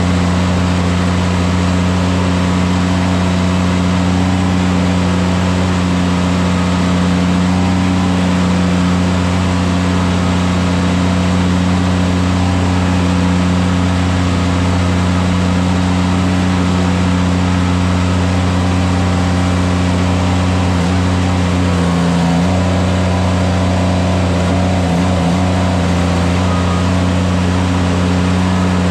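An engine running steadily at a constant speed, a loud even drone that wavers briefly about three quarters of the way through.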